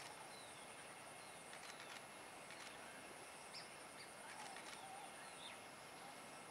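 Faint outdoor ambience: a few short, high bird chirps scattered over a steady hiss and a constant high-pitched whine.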